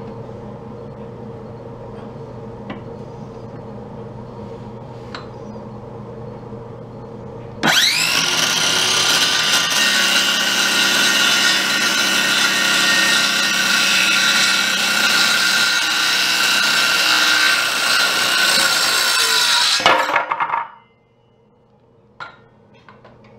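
Electric power saw cutting a wooden support board to length: the motor spins up with a rising whine about a third of the way in, runs loud and steady for about twelve seconds, then is switched off and winds down near the end. A low steady hum comes before it.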